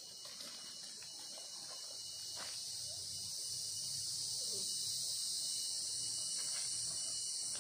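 A steady, high-pitched insect chorus that grows a little louder over the first few seconds, with a few soft crunches of footsteps in dry leaf litter.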